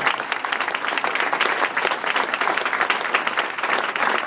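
Room full of people applauding steadily, a dense patter of many hands clapping.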